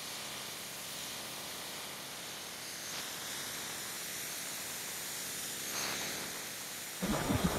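Steady faint hiss with almost no low end, like bare recording noise; about seven seconds in, louder, fuller outdoor sound cuts in abruptly.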